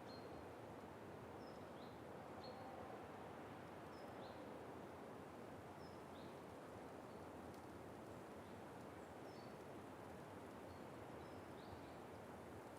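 Faint outdoor ambience: a steady hiss with short, high bird chirps every second or so.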